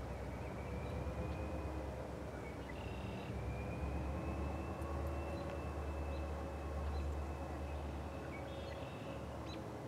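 Low, steady rumble of a distant EMD GP30 diesel locomotive approaching, with faint drawn-out tones that drift slightly in pitch; the rumble swells in the middle and eases near the end.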